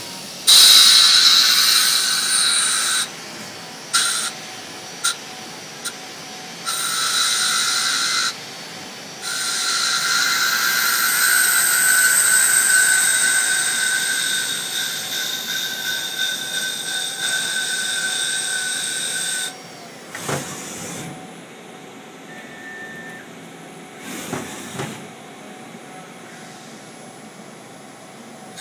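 CNC milling lathe cutting 1-inch wood stock for a handle: a high-pitched whine of the cutter in the wood, in several passes broken by short pauses and brief bursts. The longest pass stops about two-thirds of the way through, leaving quieter machine running with a couple of short sweeping noises.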